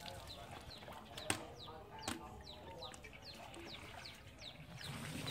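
Chickens peeping: a faint, steady run of short falling chirps, about three a second, with two light knocks early on.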